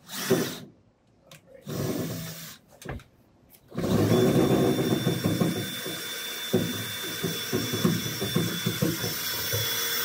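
DeWalt cordless drill/driver with a hex nut-driver bit, driving a screw down through a plywood counter top: a few short trigger bursts, then a steady run of about six seconds with a high motor whine.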